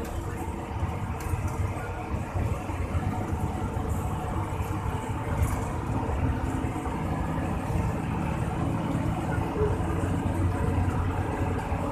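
Steady low rumble of a Hino AK8 bus on the move: its diesel engine and road noise run evenly, with no gear changes or sudden events.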